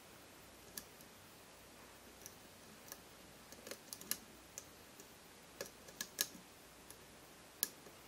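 Faint, irregular small metallic clicks of a hook pick lifting the pins of a five-pin challenge lock held under tension, about a dozen ticks with a few bunched together around the middle.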